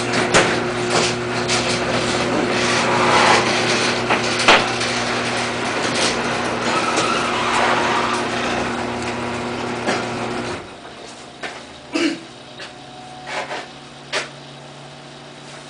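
Microwave oven running with a steady hum while a 9-volt battery burns inside it, with hissing, crackling and sharp pops as it flames up. About ten and a half seconds in, the hum cuts off suddenly as the oven stops, and a few knocks and clicks follow.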